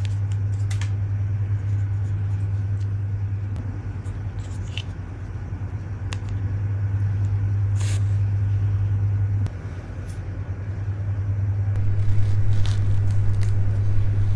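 A steady low hum that dips briefly about two-thirds of the way through, with a few faint small clicks over it.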